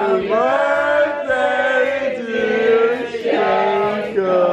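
Men's voices singing loudly in long, held, chant-like notes that slide from one pitch to the next.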